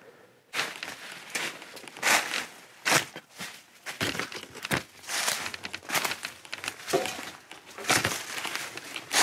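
Footsteps crunching through dry fallen leaves and twigs: an irregular series of crackling crunches starting about half a second in, some louder than others.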